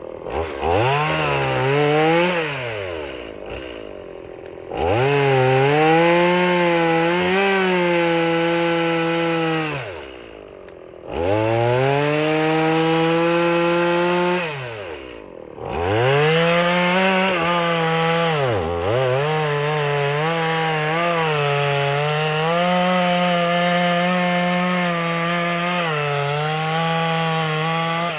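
Stihl MS180 two-stroke chainsaw revved to full throttle four times, dropping back to idle in between. During the long runs the engine pitch wavers and sags as the chain cuts through firewood.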